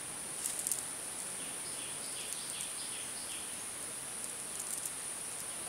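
A steady high-pitched insect drone, with a bird giving about five short, falling calls in quick succession a couple of seconds in, and a few brief crackles near the start and near the end.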